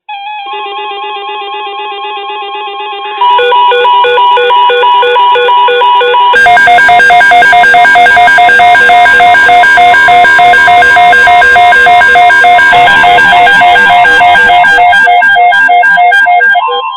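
Several NOAA weather alert radios sounding their electronic alarms at once, set off by an incoming weather alert: overlapping pulsing beeps at different pitches, with more radios joining and the sound getting louder about 3 seconds in and again about 6 seconds in.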